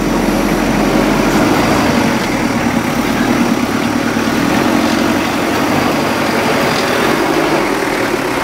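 Engine of a modified Toyota Hilux 4x4 pickup running steadily as the truck crawls slowly up a rocky dirt track.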